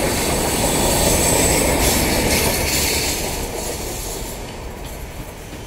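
Passenger train coaches rolling past on the rails, a steady rumble with a high wheel squeal coming and going, fading away over the last couple of seconds as the train moves off.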